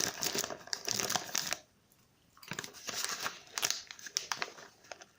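A popcorn snack bag crinkling as it is handled, in two bursts of crackling with a short pause between.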